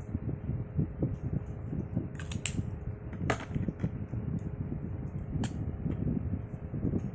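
Plastic pens handled on a desk while testing them: a few sharp clicks and taps as pens are picked up and set down, the strongest about three seconds in, over a steady background hum.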